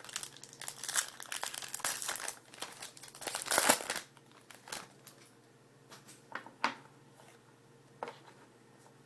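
Foil wrapper of a Panini Contenders hockey card pack being torn and crinkled for about four seconds, then a few faint soft clicks.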